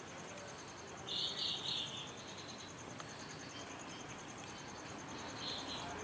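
Insects calling: a steady, high, pulsing trill throughout, with louder rasping chirps in a short group of three about a second in and again near the end.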